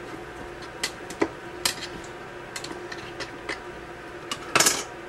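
Scattered light clicks and knocks of a canning tool against glass canning jars while filling them, with one louder brief clatter near the end.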